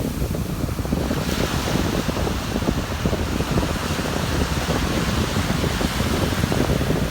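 Ocean surf washing steadily on a beach, with wind buffeting the microphone.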